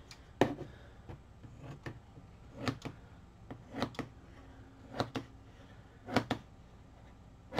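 Scissors snipping through a strip of tough fabric: about eight short, sharp snips at uneven spacing, some in quick pairs.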